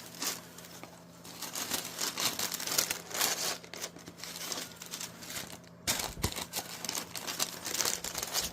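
Wrapping crinkling and rustling in irregular spells as a new pair of sneakers is unpacked from the shoebox, with a short pause in the middle.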